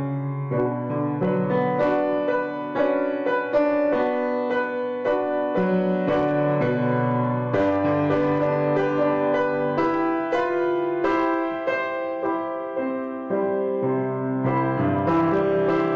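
Bauer grand piano played with both hands: struck notes and chords ring on, with low bass notes under a melody higher up.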